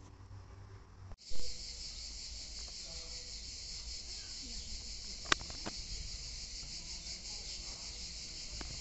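A dense, steady chorus of insects chirring with a fine rapid pulse, starting abruptly about a second in with a handling bump on the phone's microphone; a single sharp click is heard about halfway through.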